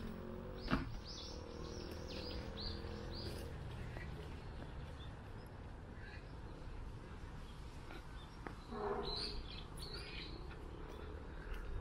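A small bird calling a quick series of about six short, falling high chirps over outdoor background noise, with a few more scattered chirps later. A low steady hum sits underneath at first.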